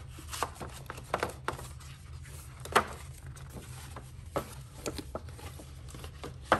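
Packs of cardstock in card-and-plastic packaging being handled and moved on a tabletop: scattered light taps and rustles, with one sharper tap a little before the middle, over a low steady hum.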